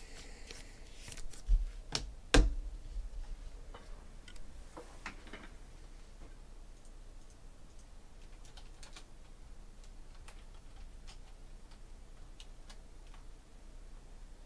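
Typing on a computer keyboard: three sharp knocks about two seconds in, then sparse faint key clicks.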